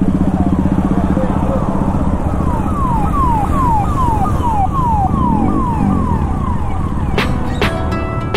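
Motorcycle engine running as the ride pulls away, with a siren sounding a run of quick falling whoops, about two or three a second, from a few seconds in. Near the end a few sharp hits cut in.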